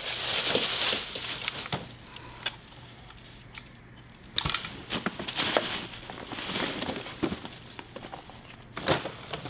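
Tissue paper crinkling and rustling as it is rummaged through and pulled out of a gift bag. It comes in several bursts, with a quieter stretch of a couple of seconds between them.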